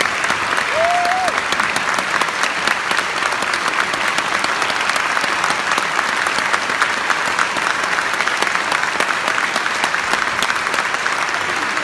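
Audience applauding steadily in a concert hall, with one brief cheer from a listener about a second in.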